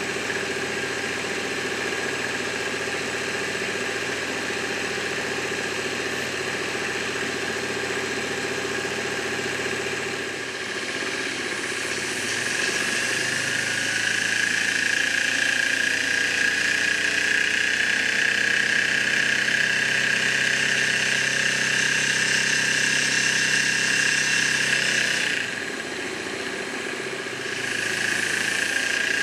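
Two small live-steam model engines, a Microcosm M29 and M30 with vertical twin cylinders, running steadily with a continuous hiss of steam and light mechanical running noise. The hiss grows louder and brighter about twelve seconds in, then dips briefly near the end.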